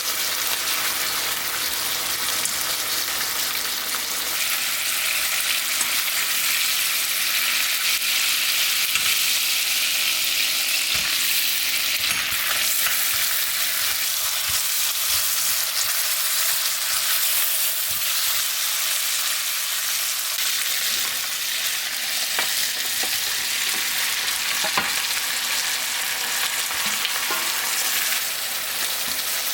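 Food sizzling steadily in a hot frying pan, with an occasional light knock of a utensil being stirred through it.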